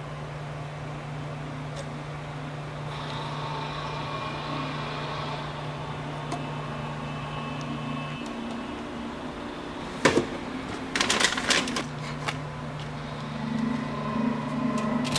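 Steady low electrical hum of darkroom equipment that cuts out about halfway through. A sharp click and then a short clatter of clicks follow before the hum comes back, as darkroom gear is handled.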